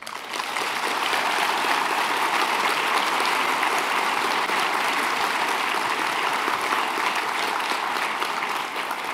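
A large auditorium audience applauding, a dense, steady clatter of many hands. It swells in the first half-second and starts to die away near the end.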